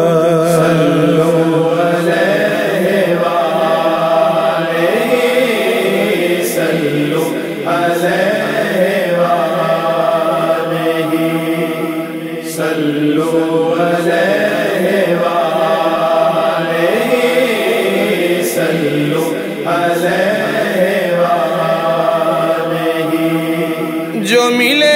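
Wordless vocal chanting in a devotional naat: voices holding long, gently wavering notes in several phrases, with brief breaks between them.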